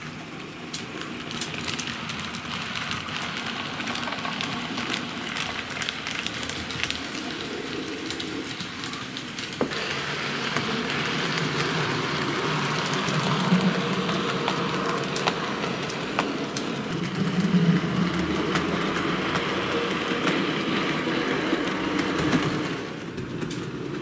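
H0-scale model class 64 steam locomotive running along the track with goods wagons: a steady mechanical running noise with the wheels clicking irregularly on the rails. It gets louder about ten seconds in.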